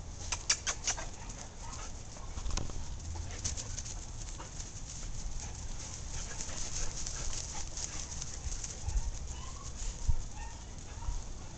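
German shorthaired pointer puppy and adult dog playing, with small dog noises. A quick run of sharp clicks comes about half a second in, and a thump about ten seconds in.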